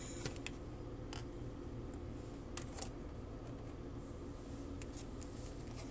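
Quiet room tone with a low steady hum and a few faint clicks of tarot cards being handled and set down.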